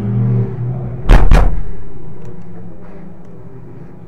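The driver's door of a Mercedes-AMG GT4 race car slammed shut about a second in, a loud double thud over a steady low hum.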